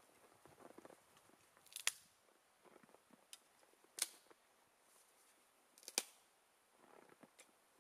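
Three sharp clicks about two seconds apart, with faint crunching between them, as a small object or tool is handled in the snow.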